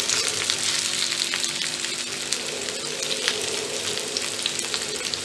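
Alu vadi slices shallow-frying in hot oil in a pan: a steady sizzle with small crackling pops, the first side crisping.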